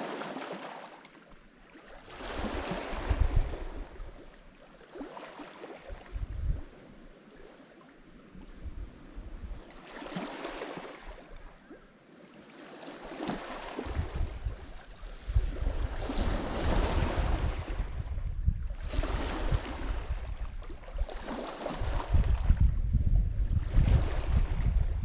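Lake Michigan waves breaking and washing up the shore, a fresh surge every three or four seconds. From about halfway through, wind rumbles on the microphone, growing stronger near the end.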